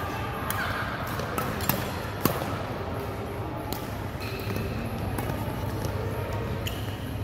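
Badminton rally: several sharp cracks of rackets striking the shuttlecock, the loudest about two seconds in.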